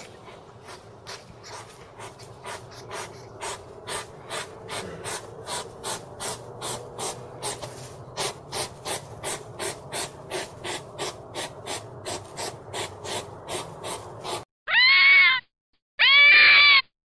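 Hedgehog snuffling and sniffing as it forages, in short rhythmic huffs about three a second. About fourteen seconds in it gives way to a red fox's two loud screaming calls, each rising and then falling in pitch.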